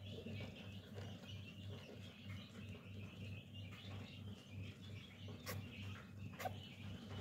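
Newborn kittens squeaking faintly while suckling, over a low rhythmic purr from their Kuril Bobtail mother. Two sharp clicks come about a second apart near the end.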